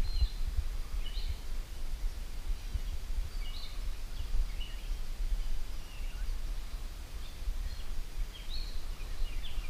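Outdoor ambience: a steady low rumble with short, high bird chirps scattered through, about one a second.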